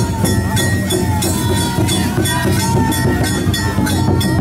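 Danjiri festival music: a hand-held gong struck in a fast, steady beat of about five strikes a second, over a low continuous rumble.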